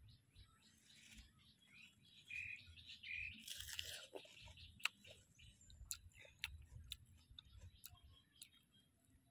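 Close-up chewing and crunching of raw vegetables, with sharp wet mouth clicks through the middle. A bird chirps briefly a couple of times between two and three seconds in.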